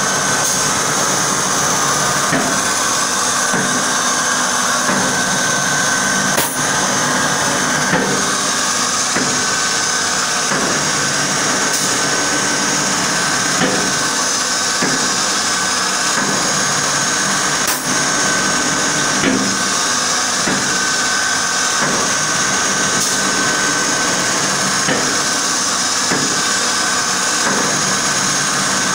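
Bacci TSG/2T oval-tenoning machine running its automatic cycle: a steady whine and hiss from its cutter spindles, with a sharp click about every five to six seconds.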